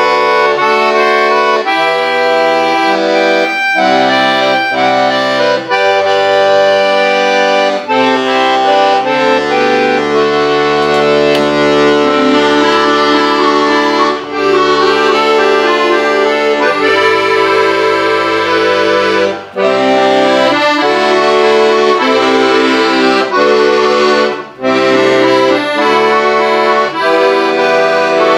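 Piano accordion played solo: held chords and melody over low bass notes, broken by a few brief pauses.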